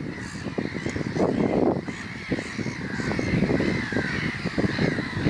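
Birds calling continuously in a wavering chorus, over wind rumbling and buffeting on the microphone.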